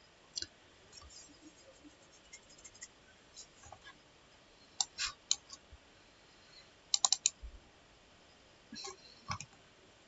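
Clicking of a computer mouse and keyboard, in scattered single clicks and quick runs. The loudest is a run of four fast clicks about seven seconds in.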